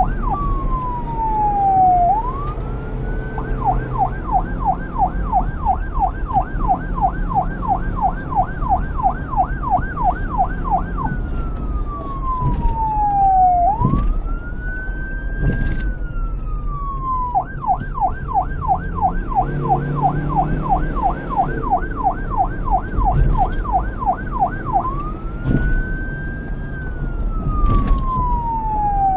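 Police car electronic siren cycling between a slow wail, which rises and falls over about two seconds, and a fast yelp of about three sweeps a second, over a low background rumble.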